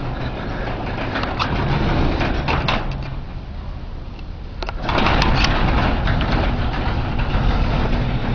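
Blizzard wind buffeting the microphone, a heavy low rumble with scattered crackles, that gusts sharply louder about five seconds in.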